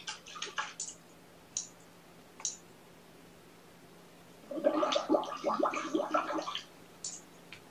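Kittens eating dry kibble: scattered small clicks and crunches, then a louder run of rapid chewing and crunching about four and a half seconds in that lasts about two seconds.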